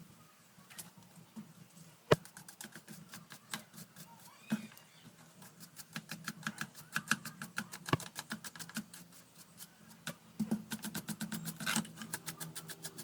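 Irregular sharp clicks and taps of plastic fan parts being handled and cleaned. They are sparse at first and become rapid and dense from about halfway, with one loud knock a couple of seconds in, over a faint low hum.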